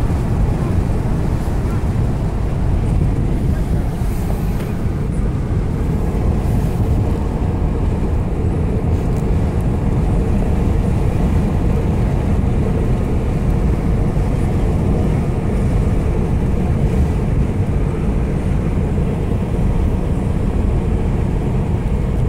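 Steady road noise inside a moving car: tyres running on a concrete road with engine hum, a low continuous rumble.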